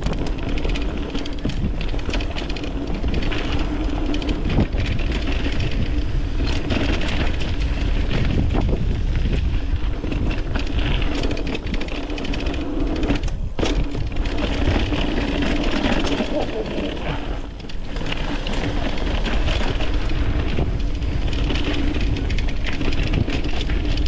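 Mountain bike riding down a dirt trail: a steady rumble of tyres over ground and roots, with the rattle of the bike and many short clicks and knocks.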